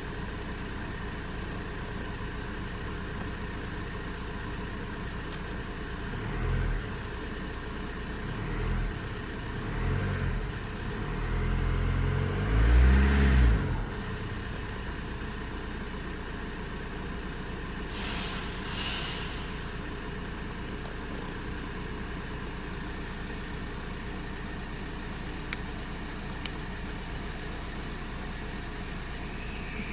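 Volkswagen Golf IV 1.9 TDI (ASZ) four-cylinder turbodiesel running cold at idle, blipped four times in short revs that rise and fall. The last and loudest comes about halfway through, before the engine settles back to a steady idle.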